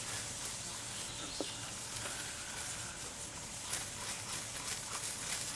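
Air hissing steadily out of a punctured car tire around the reaming tool pushed into the puncture, with faint scraping clicks from the tool.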